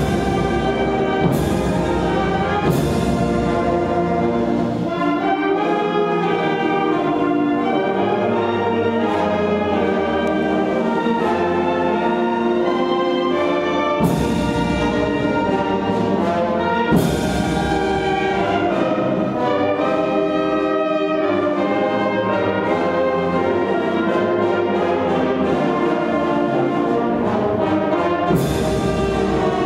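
Military brass band playing a national anthem: sustained brass chords moving from note to note, with a few sharp percussion strikes.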